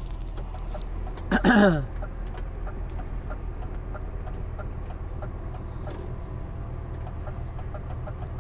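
Truck engine droning steadily, heard from inside the cab, with faint regular ticking over it. About a second and a half in, a brief, loud sound falls sharply in pitch.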